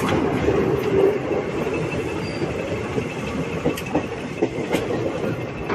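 Train running along the track, heard from aboard a coach: steady wheel-and-rail rumble with occasional sharp clacks from the rails, more of them in the second half.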